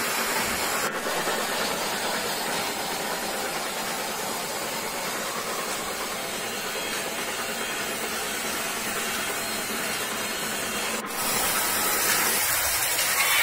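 Toy trains running on plastic track: a steady, noisy whirring hiss with no clear beat.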